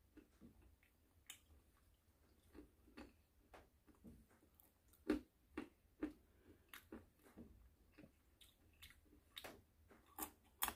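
A person chewing nuts: faint, irregular crunches and clicks scattered throughout, the loudest about five seconds in.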